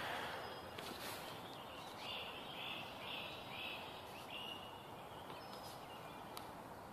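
A bird calling: a run of about five short high notes, roughly two a second, a couple of seconds in, over a faint steady hiss with an occasional light tick.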